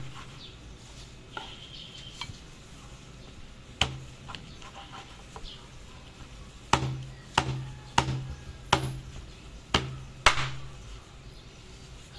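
Knife chopping through roast lechon onto a cutting board: a few light taps, then about seven firm chops, most of them in quick succession in the second half, each with a low thud.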